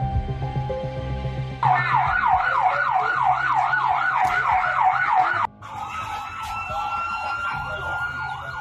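Emergency vehicle siren in a fast yelp, sweeping up and down about three to four times a second, then cutting off suddenly; after that a slower wail siren holds a high note, with a fainter fast yelp beneath it. Dramatic background music plays for the first second and a half.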